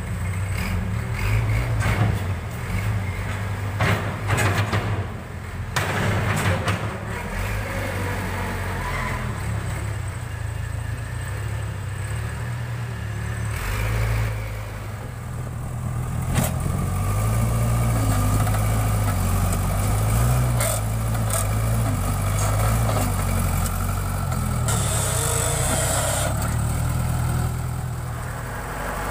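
Backhoe loader's diesel engine running and working under load, its pitch shifting as it revs, with occasional sharp knocks from the machine's metal parts.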